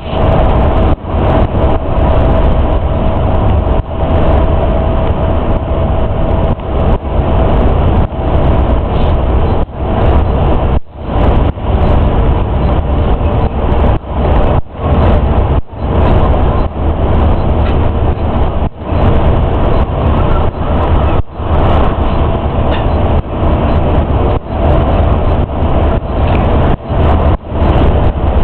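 Inside the cabin of a Yutong ZK6107HA coach cruising at highway speed: a loud, steady low drone of engine and road rumble. The sound cuts out for an instant many times.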